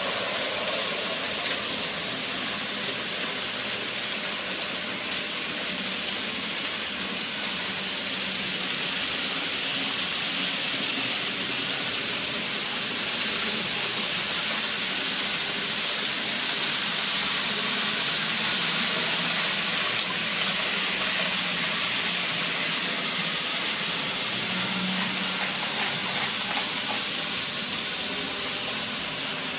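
Several model trains running on a layout: a steady whirring hiss of motors and wheels on the rails, swelling a little in the middle as a train passes close.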